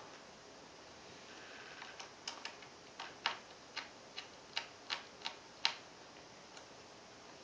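A run of about a dozen light, sharp clicks and taps, a few a second, as small parts and the laptop's plastic screen frame are handled while the LCD panel is being screwed back into place.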